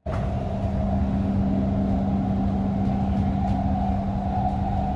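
Doha Metro train running at a steady speed, heard from inside the carriage: a constant low hum over a steady rumble, with a higher drone above it.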